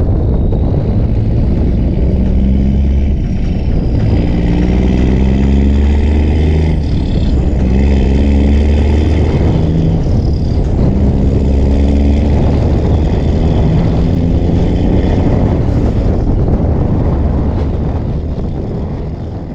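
New Holland B95 backhoe loader's diesel engine running, its pitch stepping up and down as the engine speed changes under the digging work, fading out near the end.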